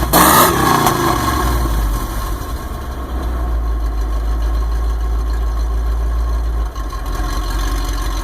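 1995 Ford F-150 engine flaring up briefly at the start, then idling steadily with a lope that sounds like a cam. The cause is a vacuum leak, which the owner traces to the Thermactor air-injection system.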